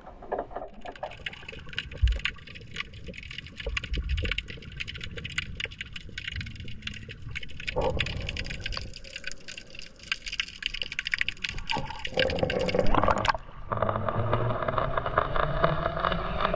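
Underwater sound picked up by a submerged GoPro: a dense, irregular crackle of sharp clicks over a low water rumble. It gets louder and fuller for the last few seconds.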